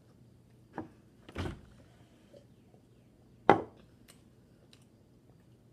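Three dull thumps against quiet room tone, the last one about three and a half seconds in the loudest and sharpest, with a couple of faint ticks after it.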